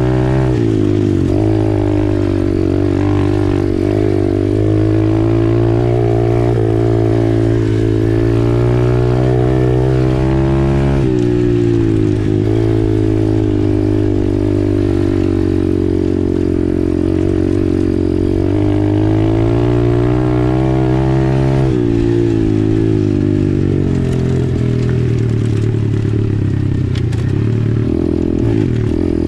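Dirt bike engine running under way on a gravel trail, its pitch rising and falling with the throttle, dipping and climbing again several times.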